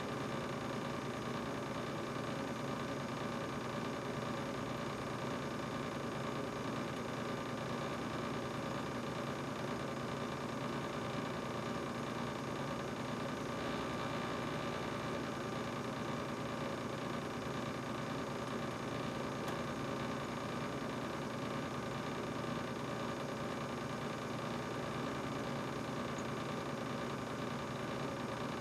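GE refrigerator running: a steady, unchanging hum with several held tones over an even whir.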